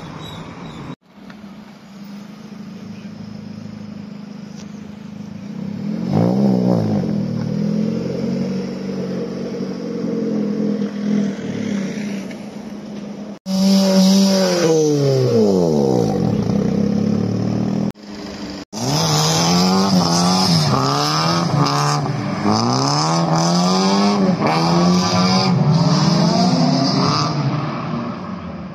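Modified cars' engines revving and accelerating past in a run of short clips. The engine note rises and falls, drops steeply after about a third of the way through, and in the last part revs up and down several times in quick succession.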